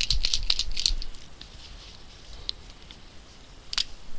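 Handling of art supplies on a desk: a quick run of small clicks and rattles in the first second, then a couple of single clicks.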